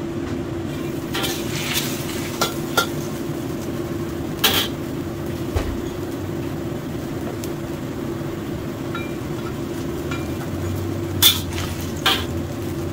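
Metal spatula stirring vegetables in a wok, with sharp metal clinks against the pan every few seconds, loudest near the end, over a steady low hum.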